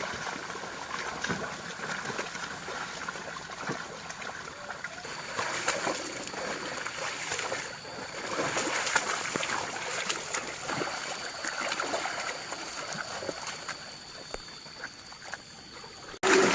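Muddy water sloshing and splashing with many small irregular splashes in a flooded rice paddy as water buffalo pull a plough through it.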